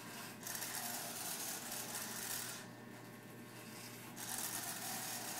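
Electric hair clippers running with a steady buzz while shaving a head, cutting through hair in two passes: one about half a second in and one about four seconds in, each adding a couple of seconds of hiss.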